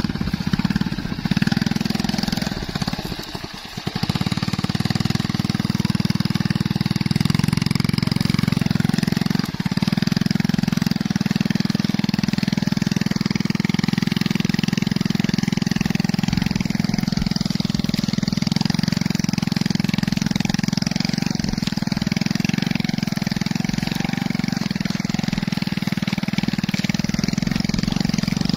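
Small motorcycle engine running while towing a plow through soil, under load. It runs unevenly for the first few seconds, dips briefly about three and a half seconds in, then runs steadily.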